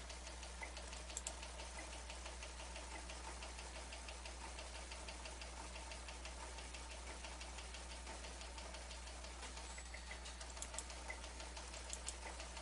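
Quiet room tone: a steady low hum and fast, even faint ticking, about four ticks a second. A few louder computer-mouse clicks come about a second in and again near the end.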